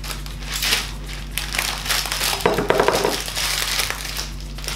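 Plastic bag of small white foam beads being handled and opened: crinkling plastic and the beads shifting and crunching inside, louder for a moment about two and a half seconds in.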